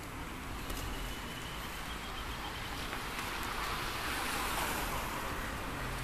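Steady street noise of passing traffic, with wind buffeting the microphone; it grows louder about four to five seconds in.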